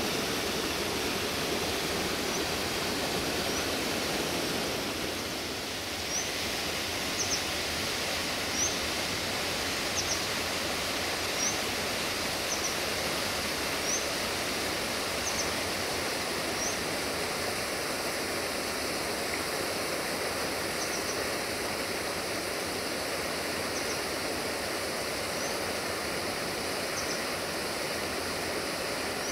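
River water rushing steadily. A bird gives short, high chirps about once a second for a while, then a few more spaced out near the end.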